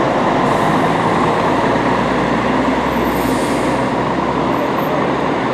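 Diesel engine of a Scania-chassis Marcopolo Paradiso 1200 G7 coach running as the bus moves off at low speed, with a steady, even level.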